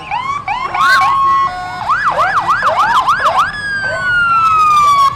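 Electronic emergency-vehicle siren sounded in short bursts: a few quick chirps, then rapid rising-and-falling yelps about three a second, then one long falling tone that cuts off near the end.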